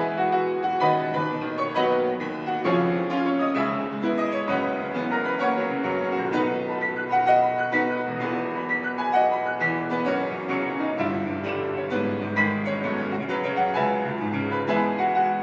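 Background music: a piano playing a calm classical-style piece, note after note with no break.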